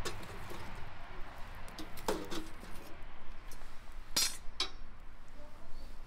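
Metal tongs clinking against the steel saj pan and the charcoal grill while the embers underneath are tended: a handful of sharp metallic clinks, the loudest about two seconds in and another about four seconds in.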